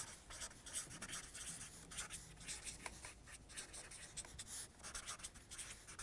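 Felt-tip marker writing on a large paper chart sheet: faint, quick, irregular scratches of the pen strokes as words are written out.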